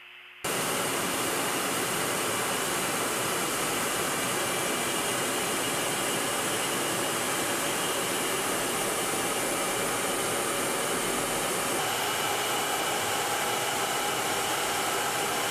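F-35B fighter jet's turbofan engine running, a loud, steady rush of jet noise with a faint whine on top. It cuts in abruptly about half a second in.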